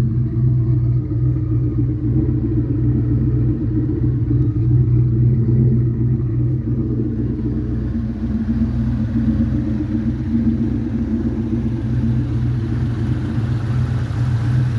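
Turbocharged Ford Mustang engine idling steadily with an even exhaust rumble. It has a little valve-train noise but no obvious exhaust-leak sound from the newly fitted passenger header with its Remflex gasket. The upper hiss grows from about halfway through.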